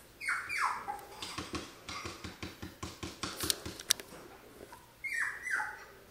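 Cocker spaniel puppy giving short high whimpers that fall in pitch, two near the start and two more near the end, with a run of quick light pattering in between, about four taps a second.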